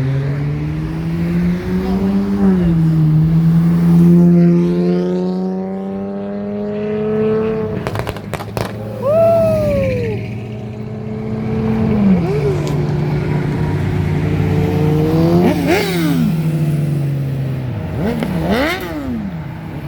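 Cars accelerating hard past one after another, engine notes climbing through the gears and dropping at each upshift, about 2 s in and again near 8 s and 16 s. Sharp knocks near 8 s and short squeals near 9 s and near the end.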